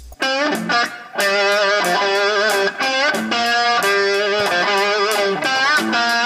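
Electric-guitar instrumental music with a steady beat.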